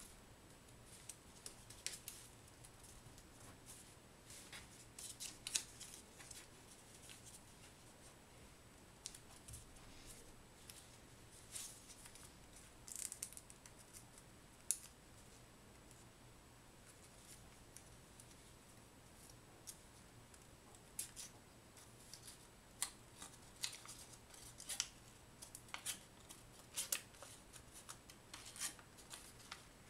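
Faint, irregular crinkles and crisp rustles of origami paper being creased, pinched and opened out by hand, coming in scattered clusters with a quieter lull in the middle.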